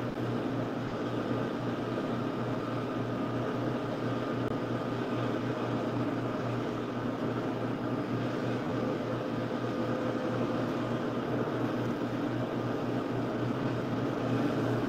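Steady background hum with a continuous rushing hiss, unchanging throughout.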